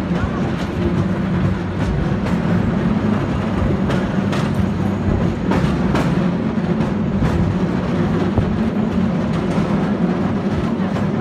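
San Francisco cable car running along its track: a steady loud rumble with scattered sharp clicks and clacks.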